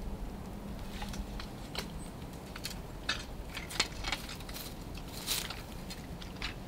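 Scattered light clicks, knocks and rustles of a trap stake and its wire being handled at the water's edge, irregular and brief, with one slightly longer scrape or splash about five seconds in.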